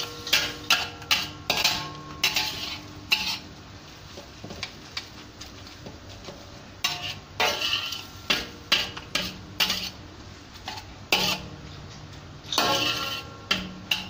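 Spatula scraping and clanking against a wok while tossing stir-fried rice vermicelli. It comes in quick bursts of strokes with a pause of a few seconds about a third of the way in, and the wok rings briefly after some hits.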